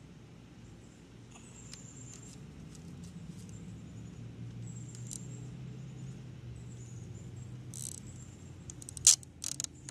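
Plastic zip tie being worked through the holes of a plastic milk crate, with faint scattered ticks of plastic handling, then a few sharp clicks near the end as the tie is pulled tight. A low steady hum runs underneath.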